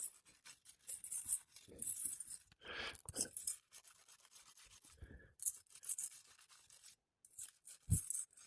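Intermittent scraping and scratching of old, brittle three-tab asphalt shingles being worked loose by hand and tool, with a couple of short soft thumps.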